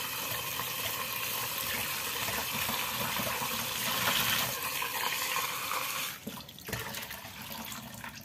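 Tap water running into a stainless steel sink as a bowl is rinsed under it, a steady splashing rush that stops abruptly about six seconds in. After that it is quieter, with a few soft knocks.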